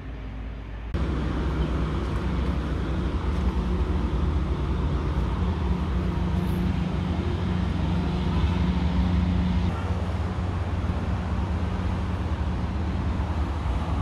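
Steady low rumble and hum of outdoor background noise, of the kind road traffic or a nearby machine makes, starting abruptly about a second in.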